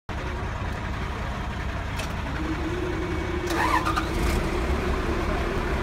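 Komatsu WA200 wheel loader's diesel engine running steadily at idle, with a brief squeaky sound about three and a half seconds in.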